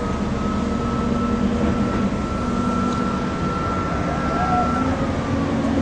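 Backhoe engine running steadily under a low rumble, with a thin high whine over it that rises slightly, holds, and drops away near the end.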